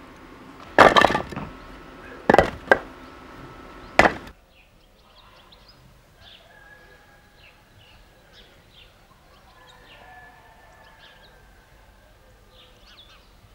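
Axe blows splitting firewood on a chopping block: a few sharp, loud strikes in the first four seconds, the first about a second in being the loudest. After that, only faint outdoor ambience with scattered bird chirps.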